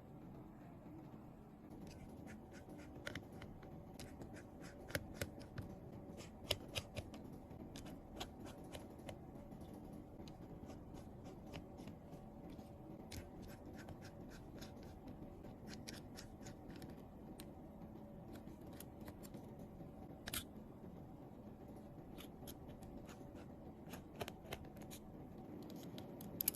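Small hand tools working on an iPhone 11 during repair: many irregular light clicks and ticks, a few sharper than the rest, over a low steady hum.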